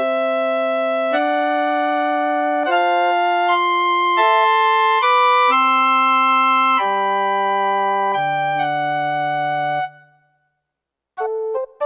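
Roland D-20 linear-arithmetic synthesizer playing a slow progression of sustained chords, changing about every one to one and a half seconds. The chords stop near the end, and after a second of silence short, separate notes begin.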